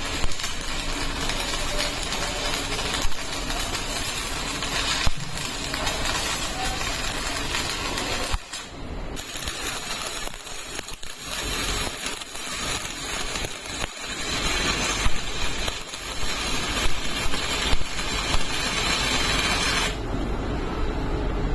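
Electric welding arc crackling and sputtering steadily, with brief breaks about eight and a half seconds in and again near fourteen seconds.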